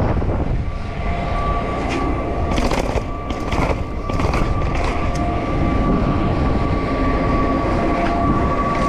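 Mountain bike descending at speed: wind rushes over the microphone, the bike rattles and clatters over bumps, and a steady high-pitched squeal holds through most of the run.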